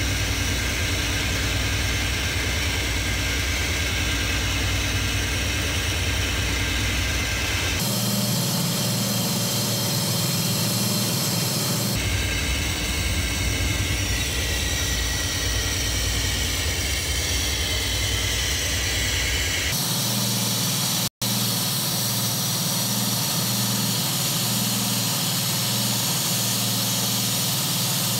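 Toyota Vios four-cylinder petrol engine running steadily at idle. It comes in several joined segments, with abrupt changes in tone about 8, 12 and 20 seconds in and a brief dropout just after the last of these.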